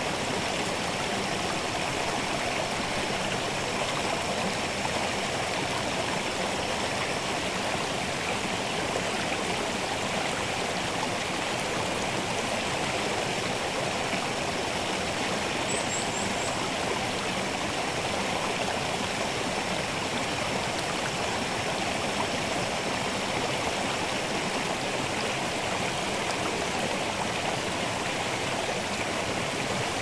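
Water of the Kotodaki waterfall and its stream rushing steadily and evenly, with no change in level.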